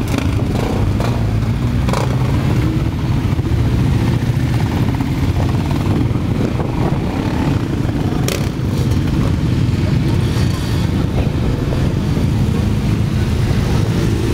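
Motorcycle engines running in slow traffic as a stream of bikes rides past, a steady low rumble, with a couple of short sharp clicks.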